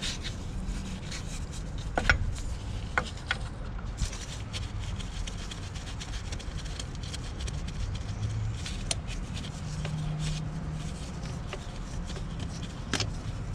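Scattered metal clicks and rubbing as an open-end wrench and a gloved hand loosen and unscrew a hose fitting nut on an air compressor line, over a steady low rumble. A few sharp clinks stand out, the loudest about two seconds in and another near the end.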